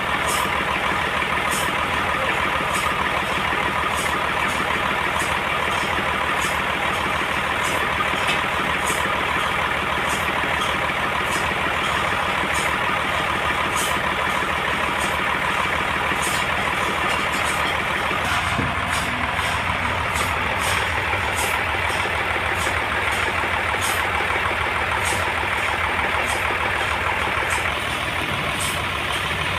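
Band sawmill running steadily as it saws a large trembesi (rain tree) log into boards, with faint regular ticking over the machine noise. The low rumble gets stronger about two thirds of the way in.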